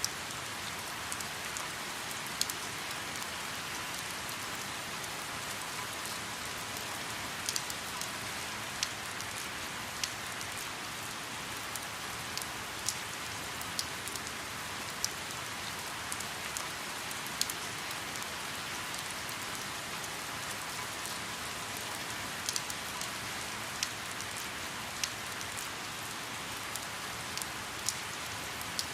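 Light rain falling on a river's surface: a steady hiss of rain with scattered sharp drop ticks.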